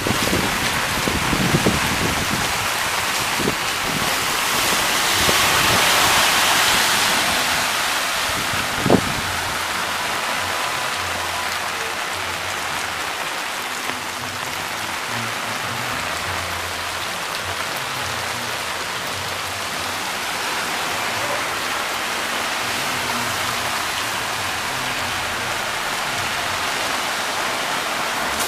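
Rain falling on a flooded street, swelling for a couple of seconds about five seconds in, with a single knock about nine seconds in.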